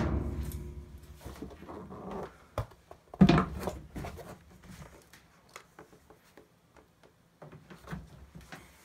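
Plastic door trim panel being turned over and set down: a loud knock that rings on briefly, a second loud knock about three seconds in, then lighter handling clatter.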